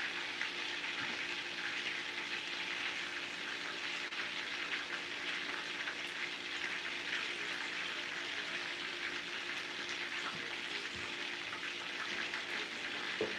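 Chicken pieces frying in a skillet: a steady sizzle with fine crackles throughout.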